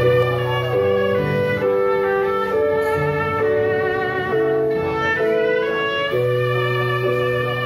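Background music led by a violin playing a melody of long held notes over a low bass accompaniment.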